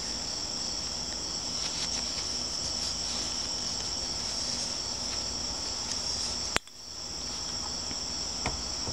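Steady high-pitched chorus of insects running without a break, with one sharp click about two-thirds of the way through, after which the sound dips briefly and then returns.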